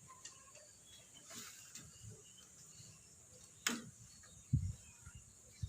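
Quiet kitchen room tone with a few scattered small clicks. A sharp tap comes about two-thirds of the way through, and a few low knocks follow near the end.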